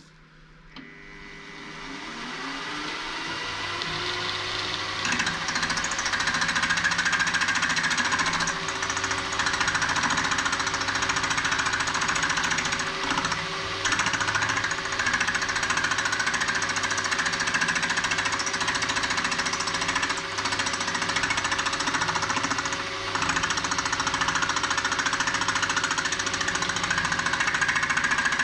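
A milling machine's spindle spins up, its whine rising in pitch over the first few seconds and then settling. A steady cutting noise follows as the cutter trims the end of a small steam-engine cylinder down to length.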